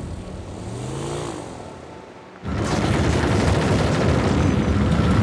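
A quiet, fading passage with a few gliding tones. About halfway through, a loud, dense low rumble cuts in suddenly: an anchor chain dragging across the seabed, ploughing through the Posidonia seagrass.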